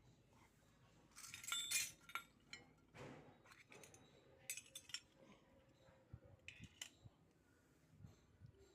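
Small pieces of a miniature toy kitchen set being handled, with light clicks and clinks scattered through and a louder rustle about a second in.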